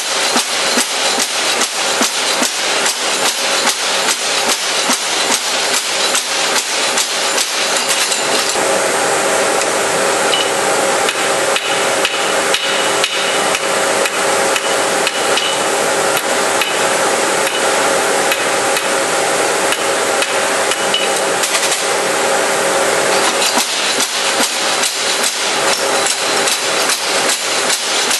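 Hammer blows forging steel for carving tools, struck in a fast, even rhythm of about three blows a second, with the metal ringing. A steady hiss joins in over the middle stretch.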